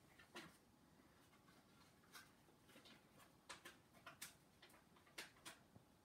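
Near silence with a handful of faint, irregular clicks and taps from handling the case and camera.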